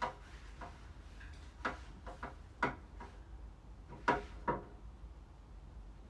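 Ceiling fan blades and housing knocking and clicking as the blades are held and wiped by hand: a handful of irregular light knocks, each ringing briefly, the loudest about four seconds in.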